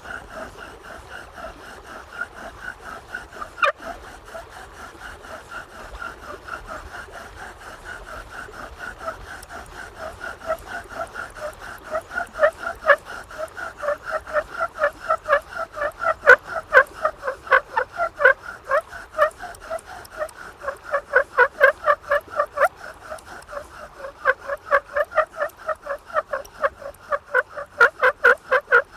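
Bow drill squeaking with every stroke of the bow, a rhythmic pitched squeal two to three times a second that grows much louder about twelve seconds in. The noise comes from the drill tip glazing over from moisture still in the damp fireboard.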